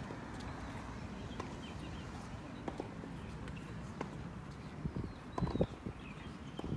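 Sharp, irregular clicks of racket-sport play, hits a second or more apart over a background of room noise. The loudest pair of hits comes a little over five seconds in, with a short high squeak.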